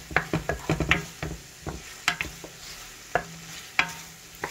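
Wooden spoon stirring and scraping shrimp around a frying pan over a soft sizzle of frying. The strokes come quickly in the first second or so, then more sparsely, about once a second.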